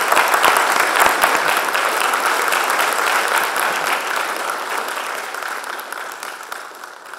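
Audience applauding at the close of a talk: a dense patter of many hands clapping, loudest at first and dying away over the last few seconds.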